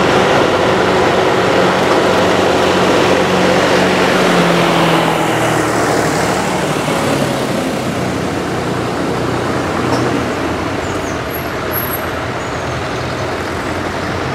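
Tractor engines running as tractors drive along a lane: the engine note of one tractor pulling away drops in pitch about five seconds in, and the sound eases off slightly toward the end as more tractors approach.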